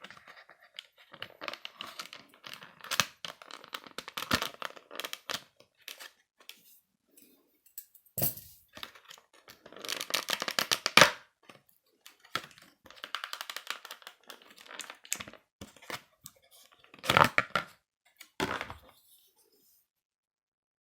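Packaging being torn open and crinkled by hand: irregular rips, rustles and clicks with short pauses, the loudest rasps about ten and seventeen seconds in.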